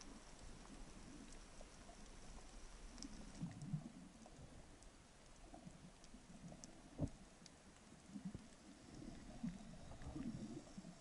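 Faint underwater sound picked up through an action camera's waterproof housing: irregular low knocks and rumbles with scattered faint clicks, and one sharper knock about seven seconds in.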